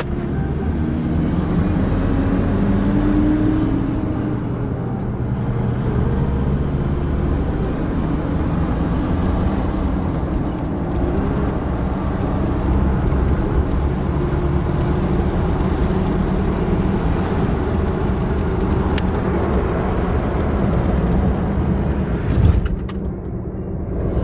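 Mitsubishi Triton pickup's turbocharged engine running steadily, with a short loud thump near the end.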